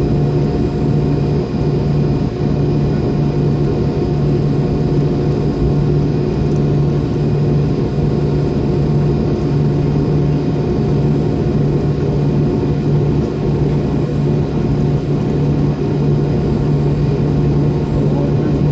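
Steady cabin drone of an MD-90's rear-mounted IAE V2500 engines running at low power before takeoff, heard from a rear seat: a loud, even low hum with a rumble over it.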